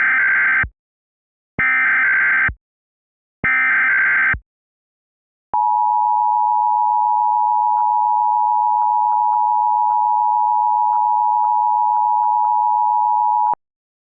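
Emergency Alert System SAME header: three one-second bursts of warbling data tones encoding a Nuclear Power Plant Warning (NUW), then the two-tone EAS attention signal, a steady dual-pitch alarm tone lasting about eight seconds that cuts off abruptly near the end.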